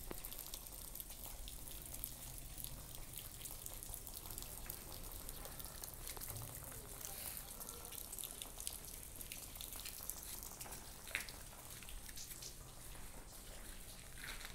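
Faint outdoor background noise: a steady low hum and hiss with scattered light ticks and crackles, and a few sharper clicks about eleven seconds in and near the end.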